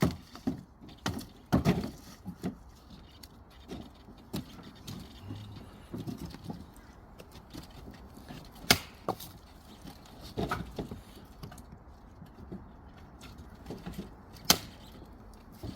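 Firewood knocking against wood: sharp, irregular knocks and clunks of varying strength, the loudest about nine seconds in and again near the end.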